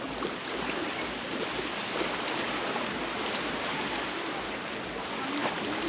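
Baltic Sea surf breaking and washing onto a sandy beach: a steady rush of wave noise.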